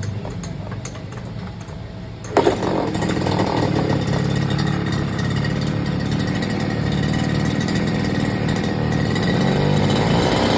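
Small petrol engine of a home-built mower rig idling, then throttled up a little over two seconds in, so that the centrifugal clutch drives the shaft, angled gearbox and cutting blade. The rig then runs steadily at high speed.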